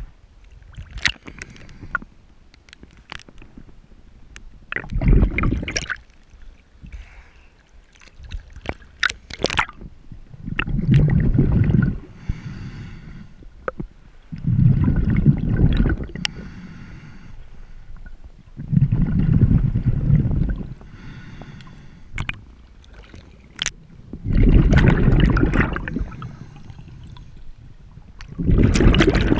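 Water sloshing and gurgling around an action camera moving at and just below the sea surface while snorkeling, with a swell of rushing water about every four to five seconds and scattered small clicks between.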